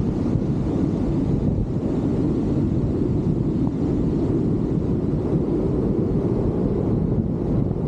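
Steady rush of airflow buffeting the microphone of a camera riding on a hang glider in flight, a low, even rumble with no engine note.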